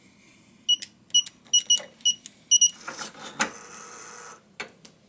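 Electronic in-room safe: its keypad beeps about seven times as the buttons are pressed, then its motorized bolt whirs for about a second and a half. Two sharp knocks follow near the end.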